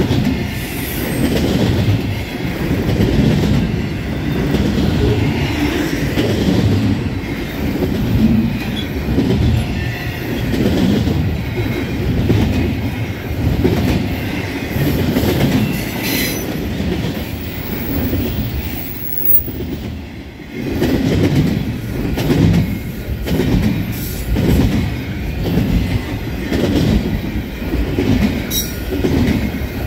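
Freight cars of a long Union Pacific double-stack container train rolling past, with a steady rumble and rhythmic clatter as the wheels cross the rail joints. A few brief high wheel squeals cut in.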